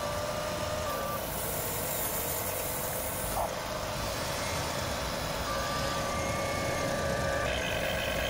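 Electric motors of a Huina 1593 RC excavator whining as the boom, arm and bucket move and the cab swings. The whines are steady tones that switch on and off several times, with a higher, shriller whine near the end.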